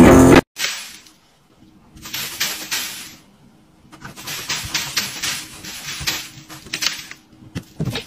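Cat scratching and digging in litter inside an enclosed automatic litter box: irregular runs of quick, rattling scratches with pauses between them, over a faint steady hum. A music track cuts off about half a second in.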